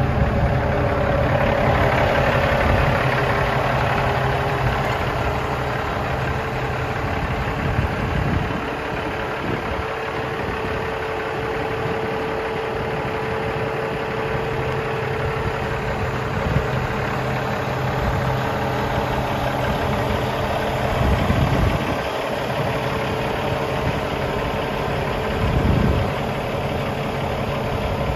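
Emissions-deleted Cummins ISX inline-six diesel of a Kenworth T800 idling steadily, with a couple of brief swells in loudness late on.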